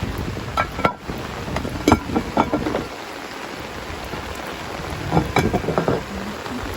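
Heavy rain falling as a steady hiss, with three short clusters of sharp taps and knocks.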